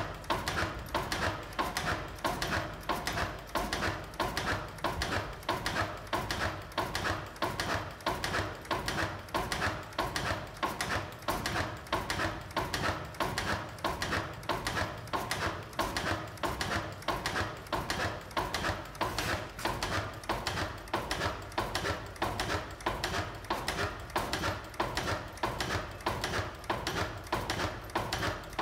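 Crossley single-cylinder stationary gas engine running at a steady speed, its valve gear and firing making an even clattering beat of about two a second.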